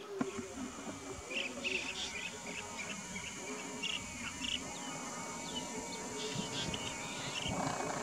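Open-country ambience: a steady high-pitched insect drone with scattered short bird chirps over it, and a low rumble underneath.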